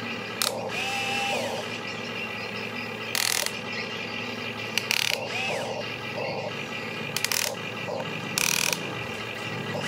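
Huina RC excavator's small electric motors and gearboxes whining as the boom, arm and bucket move, the whine gliding up and down in pitch as each motion starts and stops. Several short harsh rasps cut in as the bucket works the sand.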